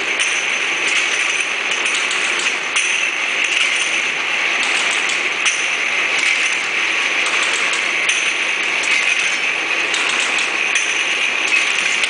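Bottle filling and capping machine with its conveyor and star wheel running: a steady mechanical noise with faint scattered ticks.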